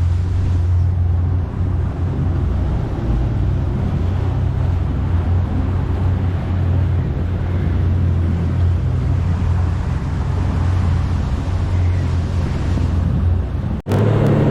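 Boat engine running steadily underway, a deep drone with rushing noise over it. Near the end it cuts off abruptly and gives way to a steadier, smoother engine hum.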